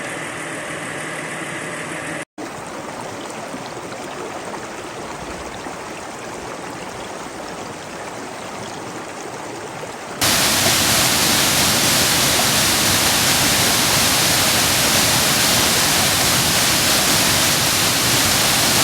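Steady rushing noise, like running water, that jumps much louder about ten seconds in. In the first two seconds there is a droning hum, then a brief dropout.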